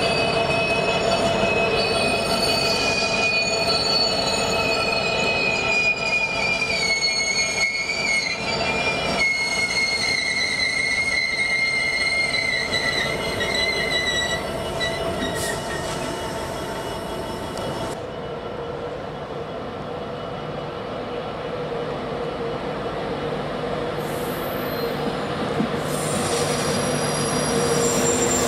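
Freightliner Class 66 diesel locomotive and its train of hopper wagons rumbling past, with a high wheel squeal that slowly falls in pitch and fades out about halfway through. Near the end another train's sound builds up.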